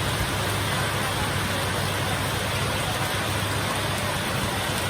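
Heavy rain pouring in a steady, unbroken hiss, with a constant low rumble beneath it.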